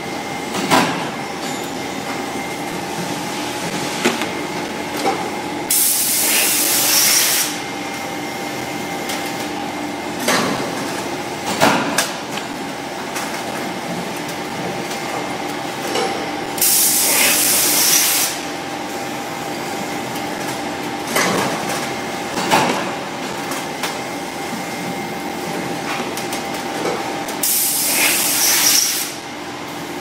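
LK die-casting machine casting zinc alloy parts in a repeating cycle: a steady machine hum with short clanks between shots. A loud hiss of about a second and a half comes three times, roughly every eleven seconds.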